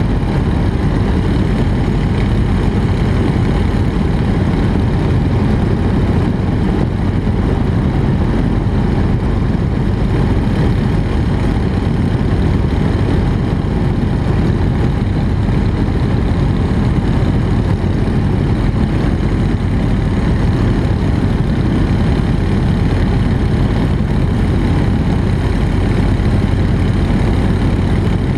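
A Nanchang CJ-6's nine-cylinder radial engine and propeller droning steadily in flight, heard from a camera on the wing.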